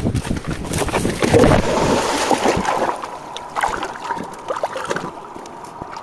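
Water splashing and churning as a person jumps and wades into a river to grab a hooked fish: heavy splashing for about the first three seconds, then lighter splashes.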